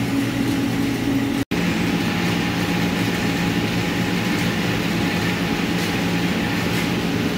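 Steady low machinery hum with a hiss, the running background of a welding shop's fans and equipment. The sound cuts out for an instant about a second and a half in, and the pitch of the hum shifts after the gap.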